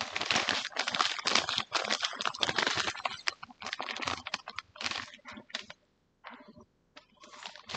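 ASMR trigger sounds close to the microphone: rapid, dense clicking and crackling, continuous at first and then in bursts, with a short pause about six seconds in.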